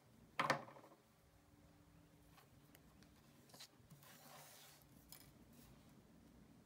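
Wire cutters snipping thin craft wire: one sharp snap about half a second in, followed by faint ticks and rustling as the wire is handled.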